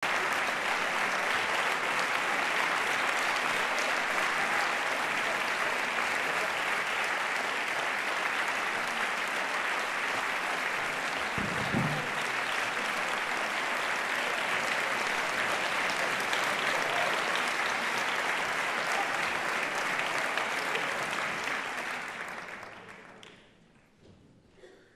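Concert-hall audience applauding steadily, the clapping fading out over the last few seconds. A short low thump comes about halfway through.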